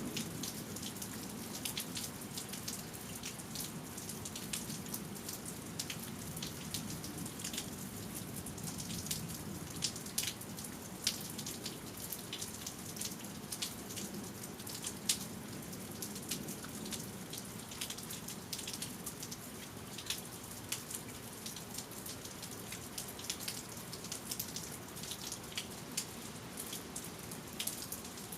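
Steady rain falling, with many single raindrops and drips striking close by as irregular sharp ticks.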